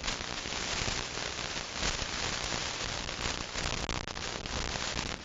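Steady hiss of HF radio static with faint crackles, the audio of a shortwave software-defined radio receiver.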